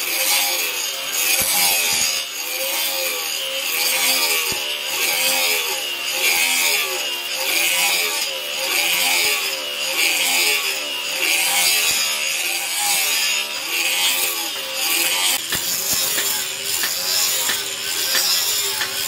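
Electric angle grinder with an abrasive disc grinding the edge of a steel machete blade. The grinder's pitch rises and falls about one and a half times a second as it is worked along the blade.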